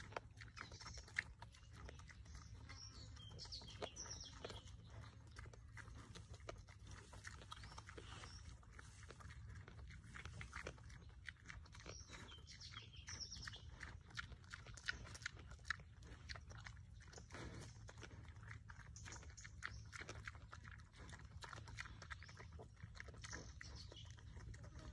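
Young wild pig eating grain off the ground: a faint, irregular stream of small crunching and smacking clicks as it chews and snuffles.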